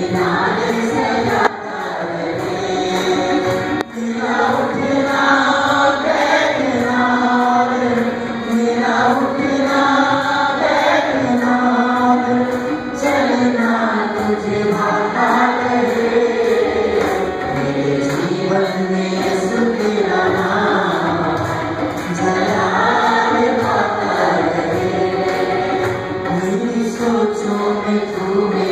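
Small church choir singing an Urdu worship song, voices carrying the melody together without a break.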